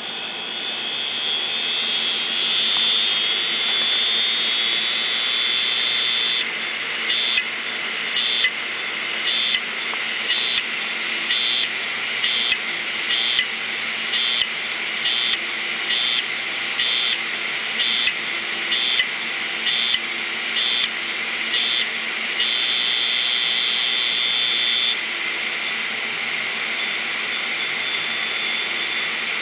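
Open 500 GB Maxtor hard drive whining at a high pitch as its platters spin up, the whine rising over the first few seconds. For about fifteen seconds in the middle a pulse repeats about once a second as the head actuator retries over platters damaged by a head crash on both sides of every platter.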